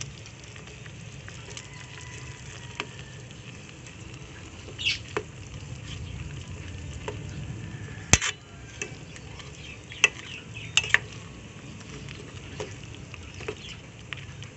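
A metal spoon stirring shrimp in coconut milk simmering in a stainless steel pot, clinking against the pot several times, loudest about eight seconds in, over a steady low sizzle from the pot.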